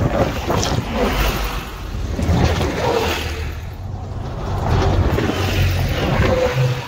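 Volvo B5LH hybrid double-decker buses passing close by on a guided busway, with tyre, wind and drivetrain noise rising and falling in about three swells. The sound drops away suddenly near the end.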